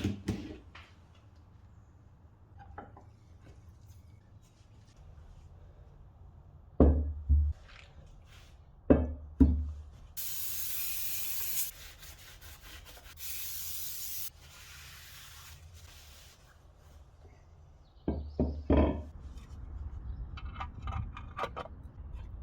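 Two bursts of spraying hiss, one of about a second and a half and one of about a second, among a few knocks and clunks of parts being handled.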